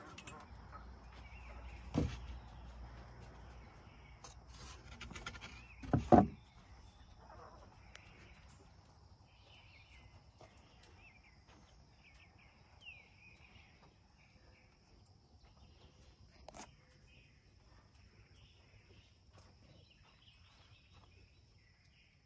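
Knocks of a wooden nest-box lid being moved and shut, the loudest a double knock about six seconds in. After that, faint short chirps from the quail over a steady high insect drone.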